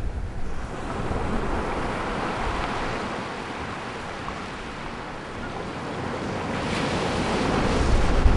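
Ocean surf: a steady wash of waves that swells about a second in, eases off around the middle and builds again near the end.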